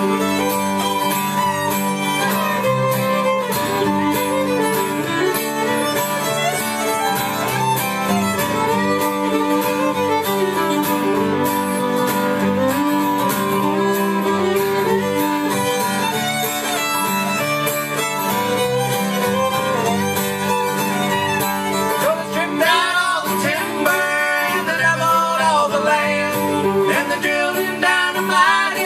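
Live bluegrass instrumental break: a fiddle playing the melody over a strummed acoustic guitar.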